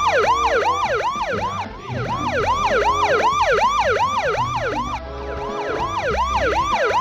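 Police siren in a fast yelp, its pitch sweeping up and down about three times a second without a break.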